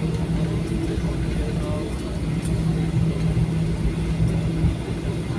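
Cabin noise inside a Boeing 737-800 rolling along the runway after landing: a steady rumble from the CFM56 engines and the wheels on the pavement, with a low hum that drops away about four and a half seconds in.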